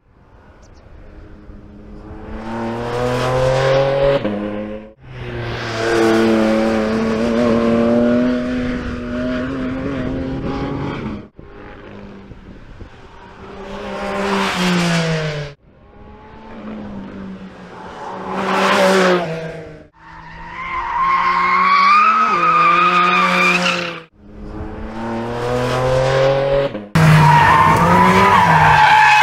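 2022 Porsche 718 Cayman GT4 RS's 4.0-litre flat-six engine revving hard through the gears in several separate passes, each climbing in pitch and loudness before breaking off abruptly. Tyres squeal in the last few seconds.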